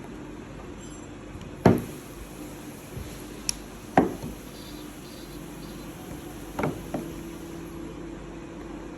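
A handful of separate sharp knocks and clicks of a screwdriver and pliers against the headlight-adjuster knob and its housing, the loudest about two seconds in. A faint steady hum runs underneath.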